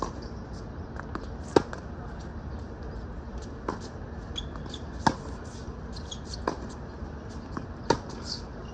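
Tennis rally on a hard court: sharp hits of racket on ball and ball bounces, about six in all, spaced roughly a second and a half apart, some loud and some fainter, over steady low background noise.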